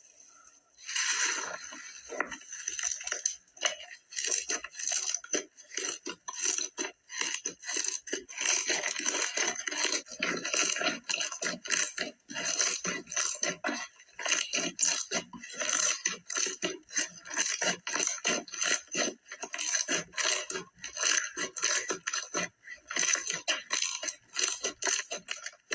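Slime being squeezed and worked by hand, making a fast, irregular run of clicks and crackles that starts about a second in.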